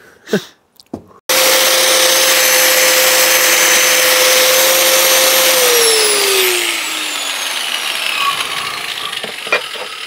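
Electric angle grinder with a wire cup brush running, scouring rust off a brake caliper pad carrier held in a vise. It starts suddenly about a second in and runs at a steady speed. From about halfway its pitch falls steadily as the motor slows.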